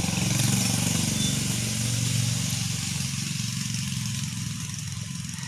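A vehicle engine running, loudest in the first couple of seconds and then fading.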